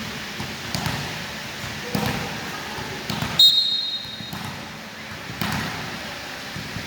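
Volleyball play: the ball is struck and bounces with several sharp thuds on a court, and there is a short high steady tone about three and a half seconds in.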